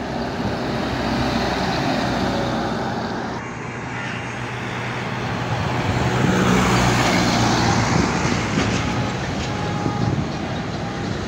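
Road traffic: heavy trucks driving past on a highway, with engines running and tyre noise. It swells loudest about six to seven seconds in, as a car-carrier truck goes by.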